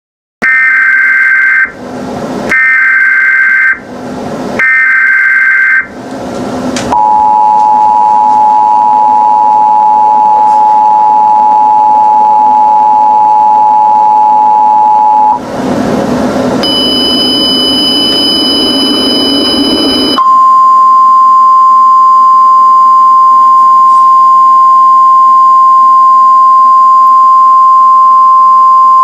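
Simulated Emergency Alert System signals: three short screeching SAME header data bursts, then the two-note EAS attention tone held for about eight seconds. After a brief noisy burst and a few seconds of higher steady tones, a single steady weather-radio alert tone runs from about two-thirds of the way in.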